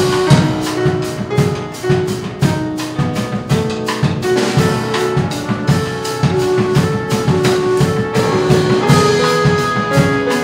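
Band music from a stage musical: a drum kit keeps a steady beat under a short keyboard figure repeated again and again.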